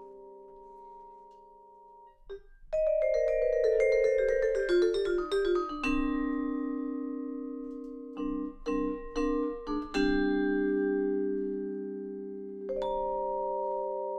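Solo vibraphone played with four mallets in a contradanza arrangement. A held chord fades, then a fast descending run of notes lands on a chord, followed by a few quick repeated chords and two more chords left ringing.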